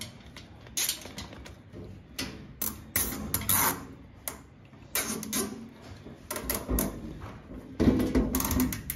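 A long plastic strap being fed around a flexible ducting hose on an exhaust port and pulled tight as a makeshift hose clamp. The sound is irregular rustles and clicks as the hose is handled, busiest near the end.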